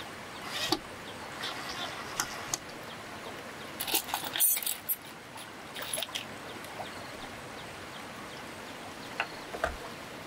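Scattered light clicks and knocks from handling a cordless drill against bamboo poles, over the steady hiss of flowing river water. A brief louder clatter comes about four and a half seconds in. The drill's motor is not running.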